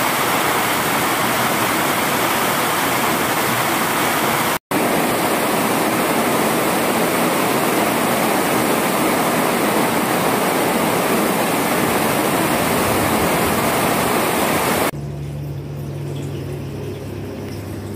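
Heavy rain pouring steadily, a dense even hiss, broken by a split-second gap about four and a half seconds in. About three seconds before the end it cuts off abruptly to a quiet room with a low steady hum.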